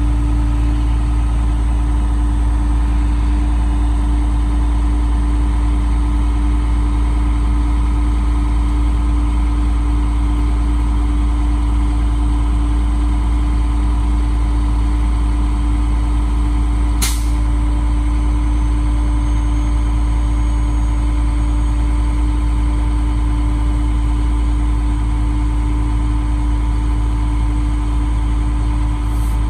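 Flatbed tow truck's engine idling steadily, with a low, even hum. Two brief sharp clicks, one a little past halfway and one near the end.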